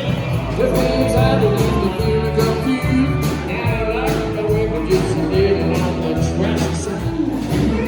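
A band playing country-style music, with guitar, a steady bass line and some singing.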